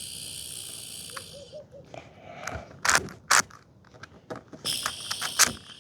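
A plastic 6x6 puzzle cube being turned: a handful of sharp clicks and clacks as its layers are moved. Behind them, a steady high insect buzz fades out about a second and a half in and comes back near the end.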